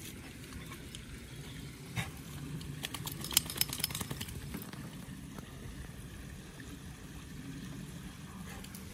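Rustling and small cracks of movement through woodland undergrowth, with a quick run of clicks and rattles about three to four seconds in, over a steady low hum.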